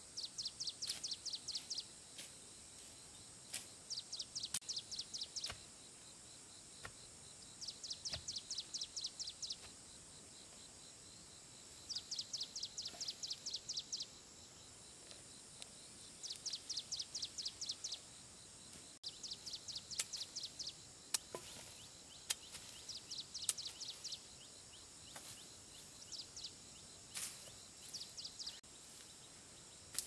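Repeated high-pitched trilling calls from a small animal, each a quick run of about ten pulses a second lasting a second or two, coming every few seconds over a steady high hiss, with a few scattered clicks.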